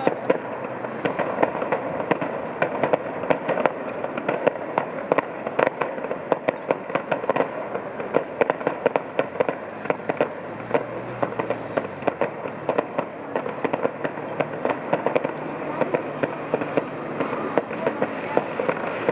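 Fireworks display: a dense, continuous run of crackling pops and bangs, several each second.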